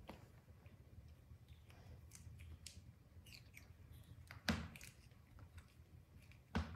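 Baby monkeys eating pomegranate: soft scattered clicks and smacks of chewing and handling the fruit, with two sharper knocks, one a little past halfway and one near the end.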